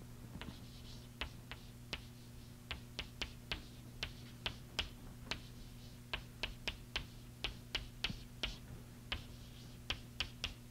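Chalk tapping and clicking against a blackboard as an equation is written, a few irregular sharp clicks a second, over a steady low hum.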